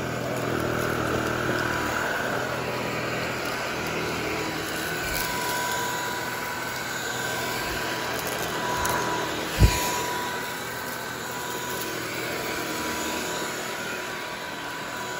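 Cordless stick vacuum cleaner running steadily over a carpet rug, its motor and suction noise carrying a faint steady whine. A single thump about ten seconds in, and the motor winds down at the very end.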